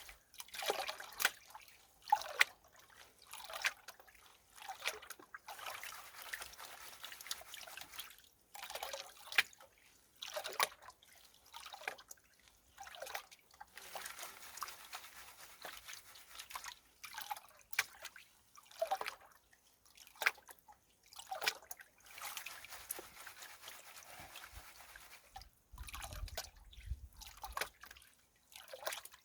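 Creek water sloshing and pouring off a gold pan as it is dipped and swirled, washing the lighter gravel off the top, in irregular splashes a second or two apart.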